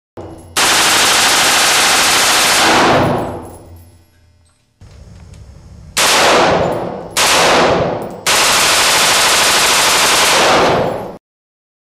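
A 6 1/2-inch-barrel AR-15 short-barreled rifle in .223 fires rapid strings of shots in a concrete-block room, the reports running together with heavy echo. There are four strings: one of about two and a half seconds, two short ones about six and seven seconds in, and a last of about three seconds, each dying away in echo.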